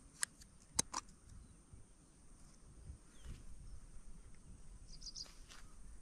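Quiet outdoor ambience with a few sharp clicks in the first second and a quick run of faint, high bird-like chirps about five seconds in, over a faint steady high hiss.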